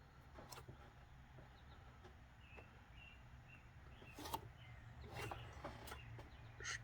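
Faint, scattered clicks and taps of engine valvetrain parts, pushrods and rocker arms, being handled and set in place, about five in all, over a low steady hum with faint bird chirps.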